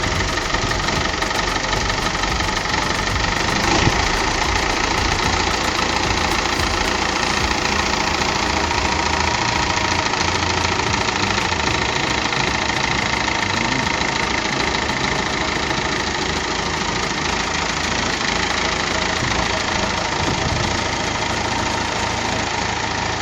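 David Brown 1490 tractor's diesel engine running steadily, with one brief knock about four seconds in.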